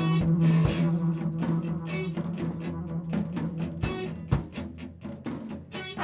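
Instrumental music: a held low note under a busy run of drum and plucked-string strokes.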